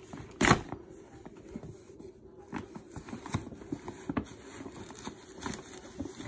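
Paper rustling and crinkling in short, scattered crackles as a present is pulled out of a gift bag, with one louder crackle about half a second in.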